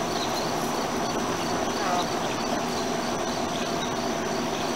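Steady whir of a greenhouse exhaust fan running close by, with a steady high whine, under a few faint hen clucks.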